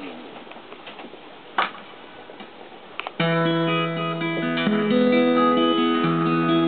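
Acoustic guitar: a quiet pause with a couple of sharp knocks, then strummed chords start about three seconds in and ring on as a song intro.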